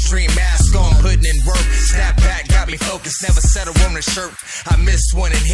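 Hip hop music with rapped vocals over a heavy bass line; the bass drops out briefly twice in the middle.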